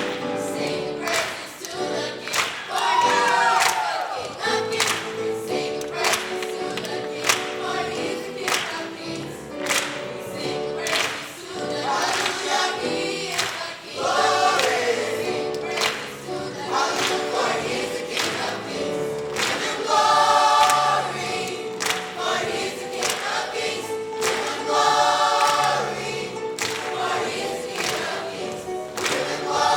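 Gospel choir singing, with a steady beat behind it.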